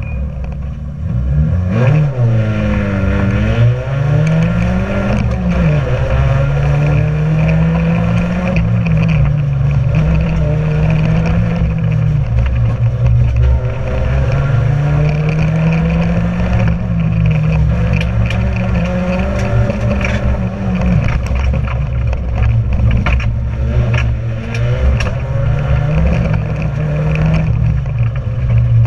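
Competition car's engine heard from inside the stripped cabin, revving up and dropping back again and again through gear changes and lifts around a tight course. Short clattering knocks sound over the engine now and then.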